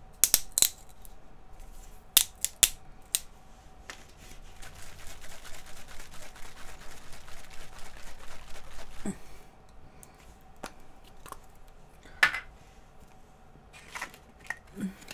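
An aerosol can of Reddi-wip whipped cream being shaken hard for several seconds in the middle, a fast rhythmic rattle. A few sharp clicks and knocks of handling come before and after.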